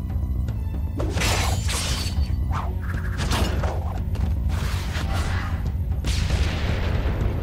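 Animated action scene sound effects over background music: a series of whooshing energy-blast swooshes and booms, roughly one every second, on top of a steady, heavy music bed.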